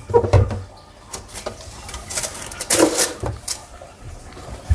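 A cloth wiping and rubbing down kitchen surfaces, with a few light knocks of things being moved. The louder rubbing comes about two to three seconds in.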